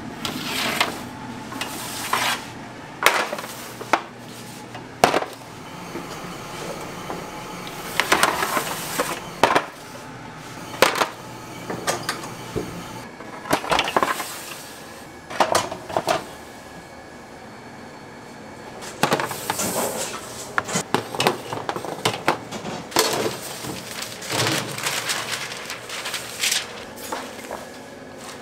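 Metal baking pans, trays and utensils clattering and clinking in bakery work, in irregular clusters of sharp knocks.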